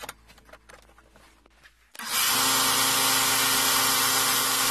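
A few faint clicks and taps, then about two seconds in the loud, steady noise of a belt grinder cuts in abruptly, its belt sanding a wooden knife handle.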